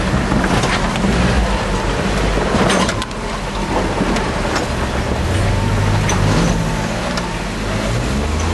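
Off-road 4x4's engine running under load as it crawls over rough trail, its pitch rising in two revs, about five seconds in and again near the end. Knocks and rattles from the vehicle jolting over roots and rocks, the sharpest just before three seconds in.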